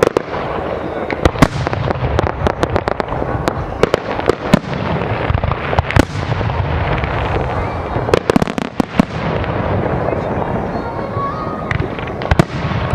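Aerial fireworks display: many sharp bangs and crackles, some in quick clusters, over a continuous low rumble of shell bursts.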